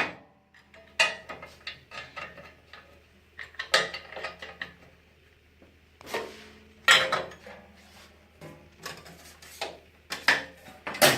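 Metal parts of a Kook-e-King Super clanking and clicking as its hopper is set back on and the pull tabs are fitted into place by hand. Scattered knocks and rattles, the loudest about seven seconds in and again at the end.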